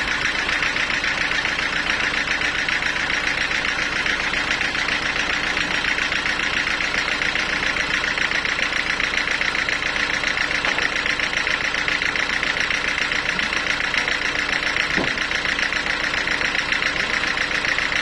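Homemade band sawmill running steadily with no load, its engine-driven blade spinning free with a constant drone.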